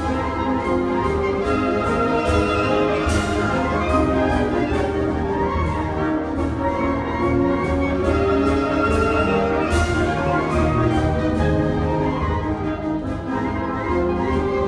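School concert band of woodwinds, brass and percussion playing live: held chords over a steady beat of percussion strokes, with a brighter crash about three seconds in and again near ten seconds.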